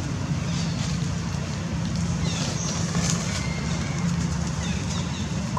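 Steady low engine hum, with faint short high chirps now and then.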